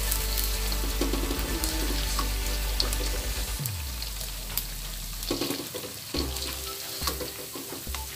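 Pempek sizzling in hot oil in a wok, with scattered clicks and scrapes of a metal mesh strainer against the pan as the pieces are scooped out. They are being lifted out once their surfaces have fried dry, not browned.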